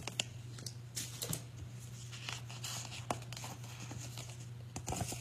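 Handling noise: scattered rustles and light clicks as laminated picture cards and a picture book are moved about, over a steady low hum.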